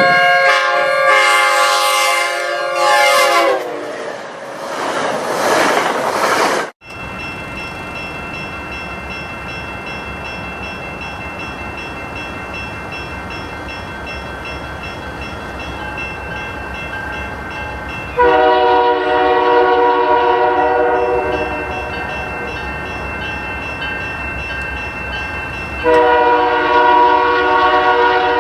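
Nathan K3L five-chime air horn on an EMD GP40-2W freight locomotive blowing long chord blasts, at the start, again around the two-thirds mark and near the end. Between the blasts the passing train makes a steady rumble.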